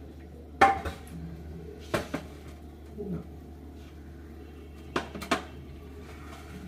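Kitchen bowls and utensils clattering as jhal muri is mixed and served: about six sharp clinks and knocks, the loudest about half a second in, then pairs around two seconds and five seconds in.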